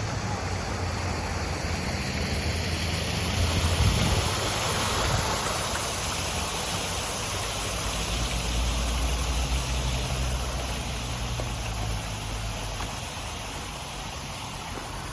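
Steady rush of a garden fountain's falling water, with a low rumble underneath that swells about four seconds in and again later.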